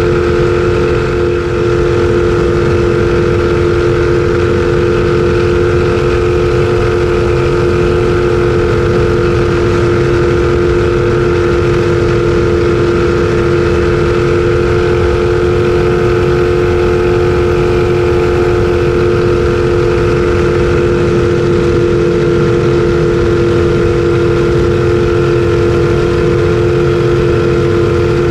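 Race jet boat's engine running hard at a steady, unchanging pitch, heard loud from the open cockpit over a steady rush of noise.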